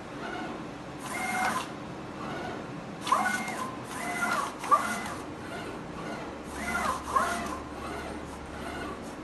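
Automatic decal cutting plotter at work: its motors whine in about six short moves, the pitch rising and falling as each move speeds up and stops, with a steady low hum between.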